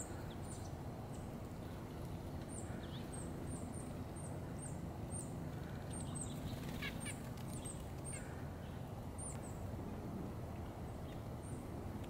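Small wild songbirds, such as chickadees and a white-breasted nuthatch, giving many short, very high-pitched calls, a couple every second, over a steady low background rumble.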